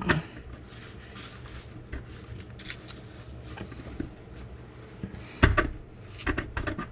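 Light metal clinks and rattles of hand tools and mount hardware being handled, with a cluster of sharper knocks about five and a half seconds in and a few more clicks near the end.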